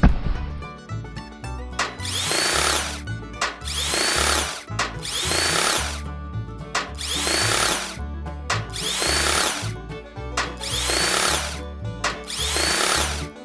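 A power tool running in repeated strokes, about eight of them, one every second and a half or so, each with a rise and fall in pitch, over background music.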